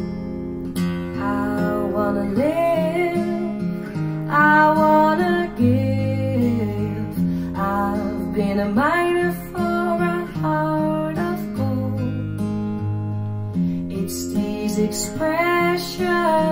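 A song with strummed acoustic guitar and a singing voice.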